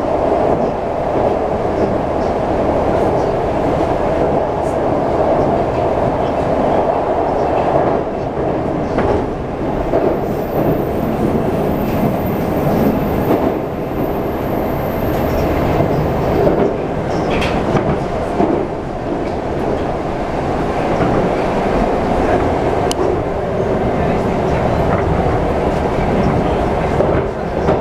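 Moscow metro 'Moskva-2020' train heard from inside the passenger car while running: a steady rumble of wheels and running gear, with occasional clicks of the wheels over rail joints.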